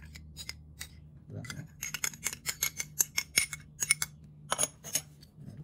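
A metal spoon stirs and scrapes melted margarine and beaten egg in a small glass bowl, clinking against the glass. It makes a quick run of sharp clicks that gets dense about two seconds in and stops shortly before the end.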